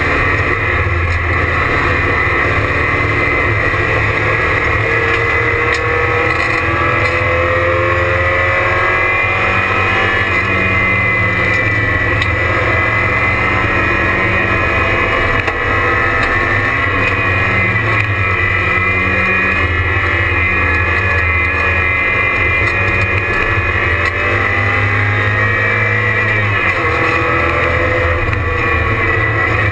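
Porsche 944 race car's four-cylinder engine at full race pace, heard from inside the stripped cabin, its pitch rising and falling as the driver accelerates and lifts through the corners.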